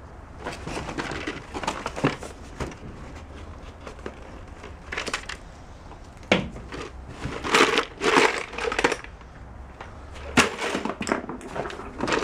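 Hands rummaging through a cardboard box of miscellaneous items, with irregular rustling and crinkling of packaging and sharp knocks and clatters as things are moved and lifted out, in louder clusters about five, eight and ten and a half seconds in.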